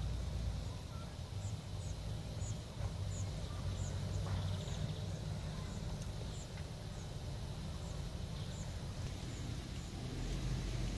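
A small bird calling with short, high, falling chirps, about two a second, over a low uneven rumble.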